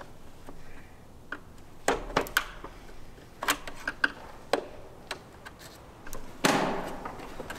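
Scattered sharp clicks and snaps of plastic seed-meter parts on a corn planter being handled and prodded, as a replacement rumble strip that sits out of its groove is worked at. A short scraping rustle comes near the end.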